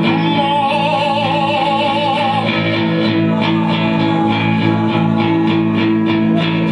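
Live band of electric guitar, bass guitar and drums playing loud: a long wavering note rides over sustained low bass notes and steady drum hits for the first couple of seconds, then the playing carries on.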